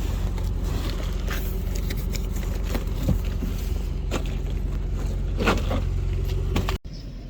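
Truck engine running at a steady idle, with scattered light rustling and scraping over it. The sound cuts off abruptly near the end.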